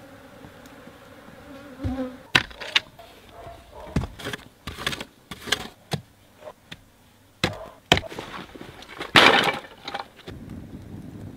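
An insect buzzes steadily at first. Then come a series of sharp wooden knocks and thuds, irregularly spaced, as wooden poles are driven into the ground and handled, with one louder crunching knock near the end.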